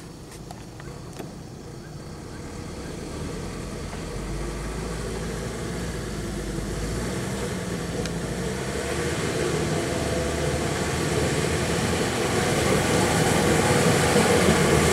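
Diesel engine of a Mitsubishi light dump truck running as the truck crawls through deep mud, growing steadily louder as it comes closer.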